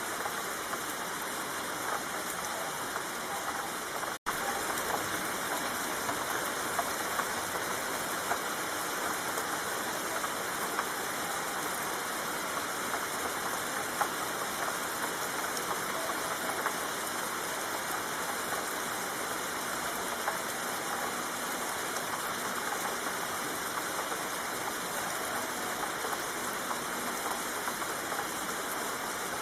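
Steady rain falling, a dense even patter of drops with no let-up. It cuts out for an instant about four seconds in, then carries on unchanged.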